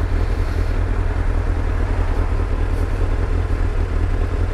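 Motorcycle riding along: its engine running steadily under a constant low rumble of road and wind noise.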